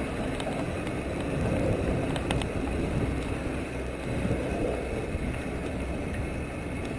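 Mountain bike rolling down a dirt trail, recorded on a bike-mounted action camera: steady rumble of tyres and wind on the microphone, with a couple of sharp clicks from the bike a little over two seconds in.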